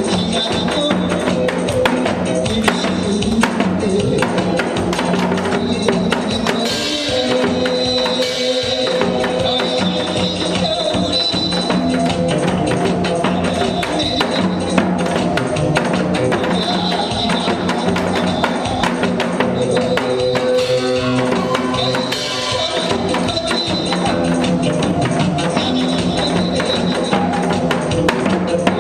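Music with a steady beat and sustained instrumental tones.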